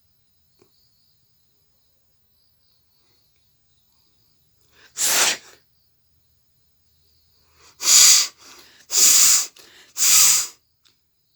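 A woman blowing her nose hard in four forceful blasts, one about five seconds in and three more close together near the end, with short breaths between; she is clearing a nose blocked since a fever.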